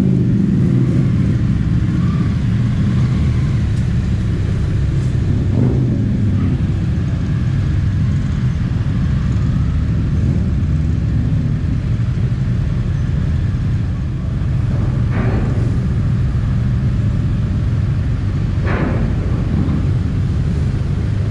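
Motorcycle engine running at low speed, a loud steady low rumble echoing in the enclosed vehicle deck of a ferry. Twice in the second half a brief higher-pitched swell rises over it.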